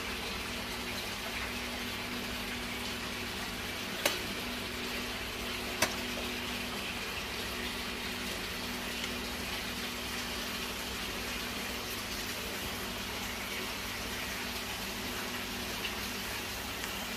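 Steady hissing kitchen background noise with a faint low hum, broken twice by a sharp click from a spoon knocking against the steel pot of seasoned glutinous rice as the dumpling filling is scooped into bamboo leaves.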